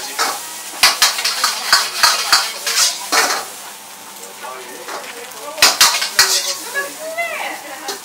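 Metal ladle scraping and clanking against a wok as egg fried rice is stir-fried and tossed, with the rice sizzling. The clanks come thick and fast for the first few seconds, ease off in the middle, then pick up again for a few sharp knocks.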